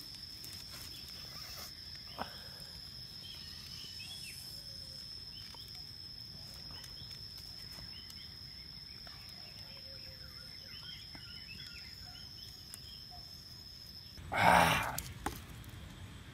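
A steady high insect drone, like a cricket's, with faint crackling from a wood fire and short high chirps. It stops about 14 s in, and a loud burst lasting about a second follows.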